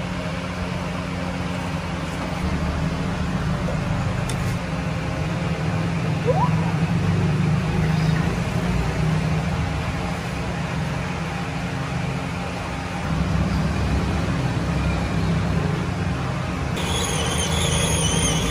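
A machine running steadily with a low hum, and a high, wavering whine comes in near the end.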